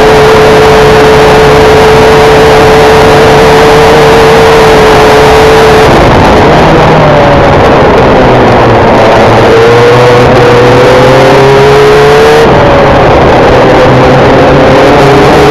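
Formula 1600 single-seater race car's engine, loud, held at steady high revs. About six seconds in the revs fall away as the car slows. Then they climb twice, with an upshift between the two climbs.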